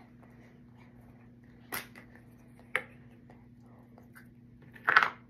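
Faint handling sounds of a small slime tub: two light clicks and, near the end, one short, louder crackling rustle.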